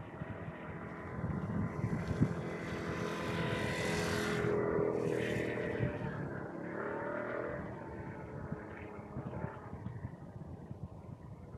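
A motor vehicle passing by: engine noise swells to a peak about four to five seconds in, then fades away.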